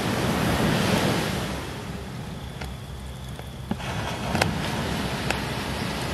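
A steady rushing noise, louder in the first two seconds and dipping a little after, with a few faint sharp clicks from about two and a half seconds in.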